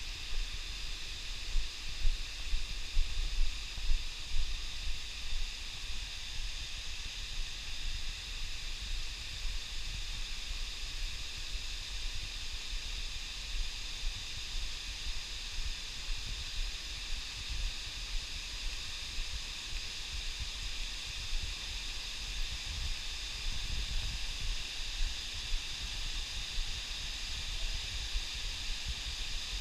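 Shiraito Falls, a wide curtain of spring water spilling from a lava cliff, making a steady rushing hiss. Irregular low rumbling comes and goes beneath it and is strongest in the first few seconds.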